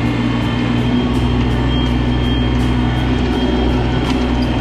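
Mahindra eMax 20S sub-compact tractor's diesel engine running at a steady speed.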